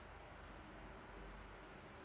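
Near silence: a faint, steady hiss of room tone, with no distinct events.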